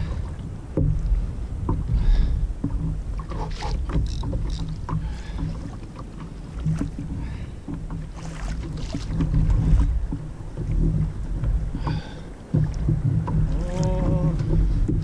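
Wind buffeting the microphone in a heavy, uneven low rumble, with water lapping against a plastic fishing kayak and scattered clicks and knocks from the rod and reel as a fish is being reeled in. A brief pitched sound comes near the end.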